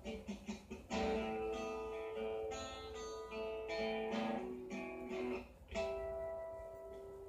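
Background guitar music: plucked notes and chords in a slow melody, each note ringing on.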